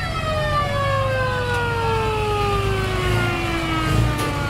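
Emergency vehicle's siren sliding down in one long, slow falling wail that fades near the end, over a steady low engine rumble.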